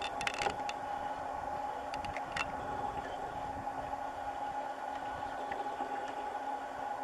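Steady mechanical hum with a few faint clicks and rustles near the start and again about two seconds in, from the Canon SX50 camera being handled and zoomed.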